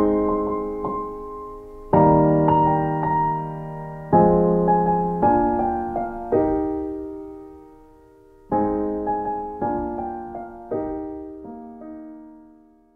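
Background music on a slow solo piano: chords are struck and left to ring and die away. The sound fades almost to nothing about seven seconds in, picks up again with new chords, then fades out near the end.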